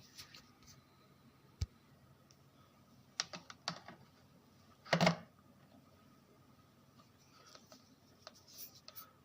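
Scattered small clicks and taps from handling, with a louder brief knock-and-rustle about five seconds in.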